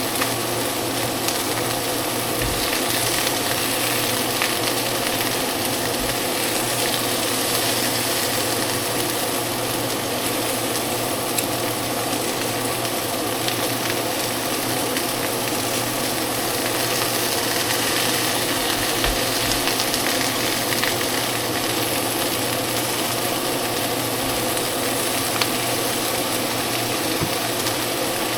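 Food sizzling steadily in a frying pan, over a steady hum, with a few light clicks.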